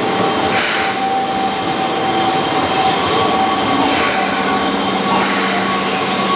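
Keihan 6000 series electric train running past, its 33-year-old traction motors whining in steady tones over the rumble of the wheels on the rails; a second, higher whine takes over about three seconds in.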